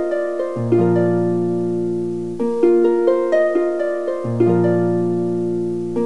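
Background music of plucked-string notes, harp-like, played in repeating arpeggio figures over low bass notes.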